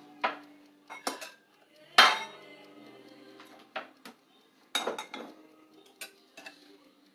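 Cutlery and dishes clinking and clattering in a series of sharp knocks, the loudest about two seconds in with a brief ring.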